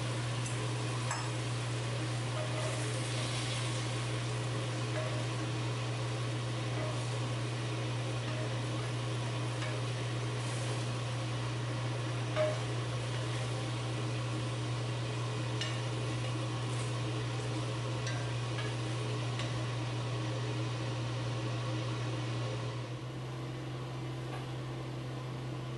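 Teriyaki sauce and chicken sizzling in a cast iron skillet, with a steady low hum under it. A single clink about halfway through.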